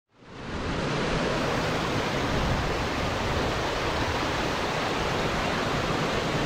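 Creek water rushing steadily over rocks, a constant even roar that fades in about a second in.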